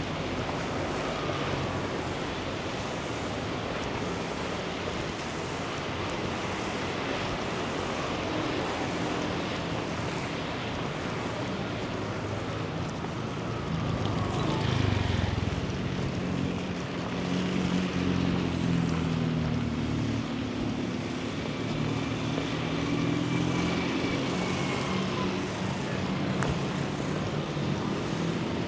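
Steady hiss of rain with street traffic: a motor vehicle passes close about halfway through, and engines hum under the rain for the rest.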